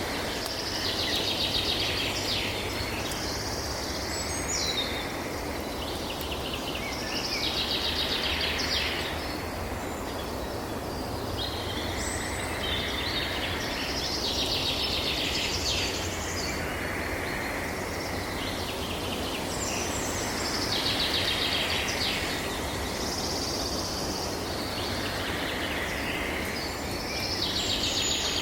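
A songbird singing short phrases of a few seconds each, about five times, with pauses between them, over a steady outdoor rush of wind-like noise.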